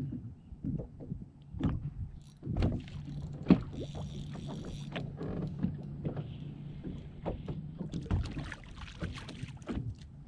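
Water slapping and knocking irregularly against a bass boat's hull, with wind on the microphone. A steady low hum runs from about two and a half to eight seconds in.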